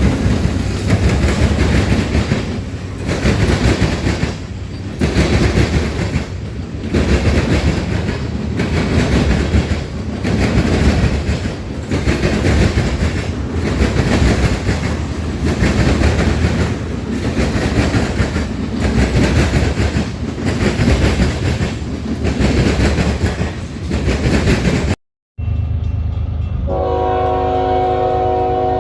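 Railroad cars rolling past close by, wheels clattering over the rail joints in a rhythm that swells and dips about every two seconds. After a brief cut near the end, a train's horn sounds a steady multi-note chord.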